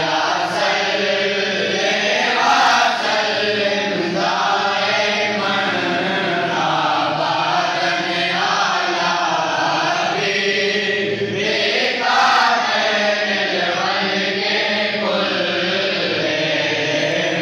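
A group of men chanting a devotional Islamic recitation in praise of the Prophet in unison, in long sung phrases.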